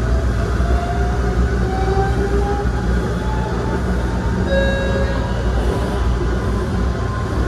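ABB N5 light-rail car's electric traction motors whining, the pitch climbing steadily as the car accelerates, over a steady rumble of the running gear on the rails. A short tone sounds about four and a half seconds in.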